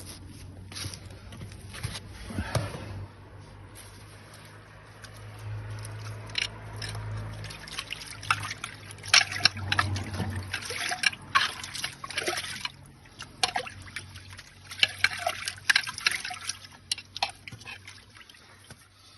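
Water trickling and sloshing in a blocked drain, with many irregular sharp splashes and knocks, busiest in the second half.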